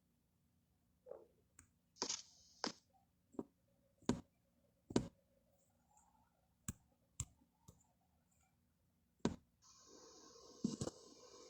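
A series of sharp, irregularly spaced clicks and knocks, about a dozen in all. A steady hiss starts near the end, with a few more clicks over it.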